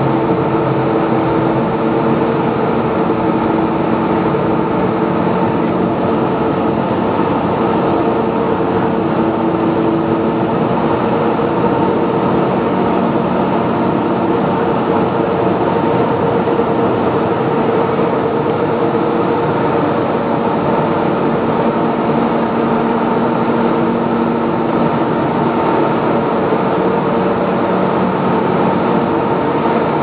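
Steady industrial machinery din in an aluminium melting and rod casting plant: a loud, unbroken noise with a constant hum of several fixed tones.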